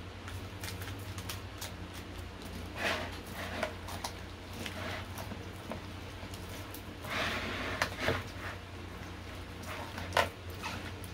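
Gloved hands working seasoning into raw short mackerel: scattered short clicks and brief rustles, over a steady low hum.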